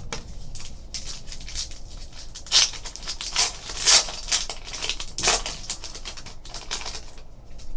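A trading card pack's foil-lined paper wrapper being torn open and crinkled by hand: steady crackling, with a few louder crackles in the middle.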